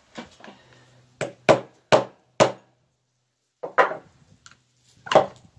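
Hammer knocking on the rusted electric motor housing of a Warn 2500 ATV winch, to break the end cap loose. There are four sharp strikes in quick succession, then a pause and two more.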